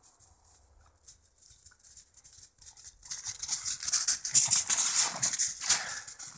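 Footsteps crunching in crisp snow: faint at first, then loud and rapid from about three seconds in as they come close.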